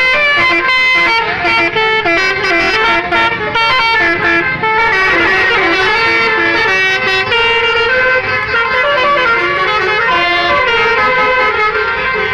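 Telolet musical air horns on several buses sounding together, each horn stepping through short runs of notes so that the tunes overlap with no break.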